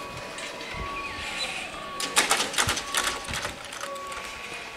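Level-crossing warning bell ringing in evenly repeated tones while the barrier booms lower. About two seconds in comes a loud rattling clatter of many sharp clicks, as the booms and their hanging grilles come to rest.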